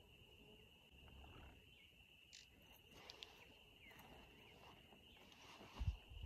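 Steady high-pitched trill of insects, like crickets, with a few faint short chirps partway through and a low thump near the end.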